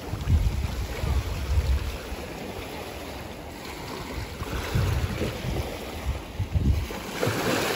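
Wind gusting against the microphone over the rush of sea surf, with a louder swell of surf about seven seconds in.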